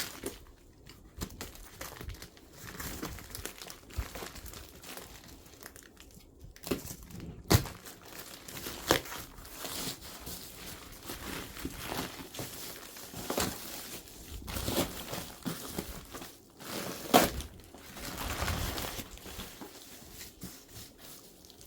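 Packaging crinkling and tearing as a parcel is unwrapped by hand, with scattered clicks and two louder knocks, one about a third of the way in and one about three-quarters of the way in.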